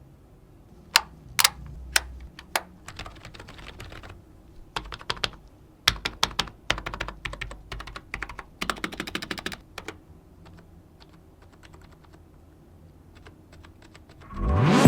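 Keys of a REXUS K98M gaming keyboard being pressed. First come three single sharp clicks, then quick runs of typing broken by pauses, thinning out to a few stray keystrokes. Music starts to rise right at the end.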